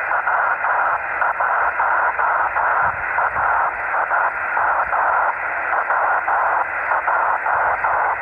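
Upper-sideband radio receiver audio: a loud, rough hiss confined to the narrow voice band, broken by short irregular dropouts. This is the smeared, noise-like sound of a 10 GHz signal scattered off rain, heard through a transverter's 144 MHz IF.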